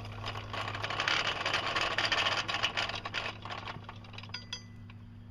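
Rough metal-on-metal scraping for about three seconds, then a brief light metallic ring near the end, over a steady low hum.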